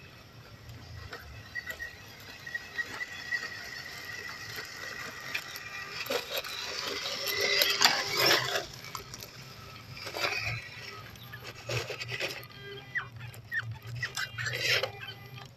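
MN99S RC Land Rover Defender crawler driving closer, its small 260-size motor and gears whining, with tyres crunching over dry leaves and gravel. The crunching is loudest about eight seconds in and comes again in bursts near the end.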